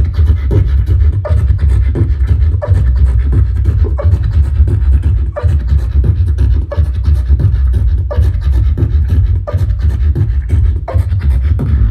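Loud live performance over a club PA: heavy, distorted bass with a sharp hit about every second and a half, cutting off abruptly at the end.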